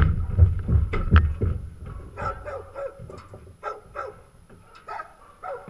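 Horse's hooves thudding on a trailer's ramp and floor as it walks in, heavy steps in the first second and a half, then softer, scattered steps.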